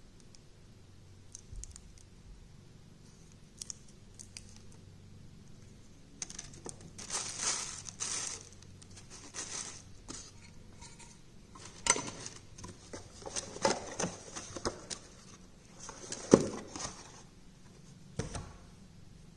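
Watch packaging being handled and cleared away: cardboard and paper rustling and crinkling in irregular bursts, with clicks and knocks from the hexagonal watch tins and their lids. The loudest is a sharp knock about 16 seconds in, followed by a duller thump near the end.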